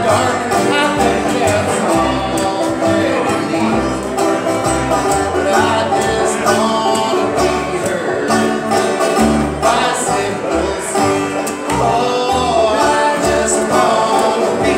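Live bluegrass trio playing: banjo picking, strummed acoustic guitar and plucked upright bass, with a man's voice singing over them.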